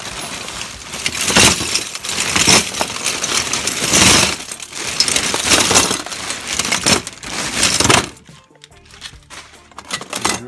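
Brass door handles and backing plates clattering and jangling as a plastic carrier bag full of them is tipped out onto the floor, the bag crinkling. The heavy metal clatter runs for about eight seconds, then drops to a few lighter clinks as the last pieces settle.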